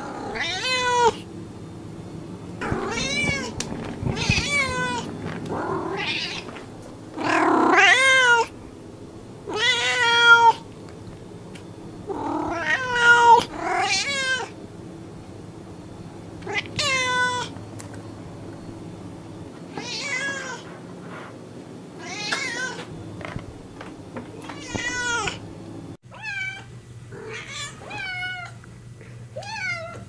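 Domestic cats meowing over and over, a loud pitched meow every second or two, some long and wavering in pitch. Near the end the meows become quieter.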